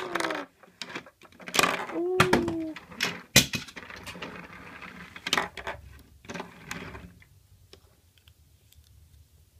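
Plastic LEGO Duplo number-train bricks and wheeled cars being handled on a tabletop: a run of sharp clicks and clatters, then the train's plastic wheels rolling across the table with a low rumble until about seven seconds in, after which it goes quiet.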